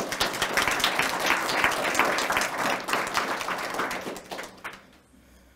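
Audience applauding, the dense clapping dying away about four to five seconds in.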